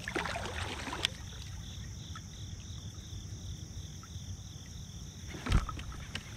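Insects chirping steadily, one voice pulsing about three times a second over a constant high buzz. A brief scratchy rustle comes in the first second, and a single sharp thump about five and a half seconds in is the loudest sound.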